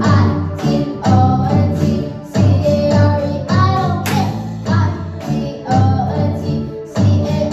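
A children's rock band playing live: a boy singing into a microphone over two electronic keyboards, an electronic drum kit and an electric guitar, with a steady beat of about two strokes a second.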